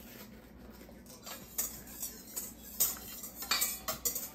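Kitchen utensils clinking and knocking against dishes in irregular strikes, starting about a second in and growing louder toward the end.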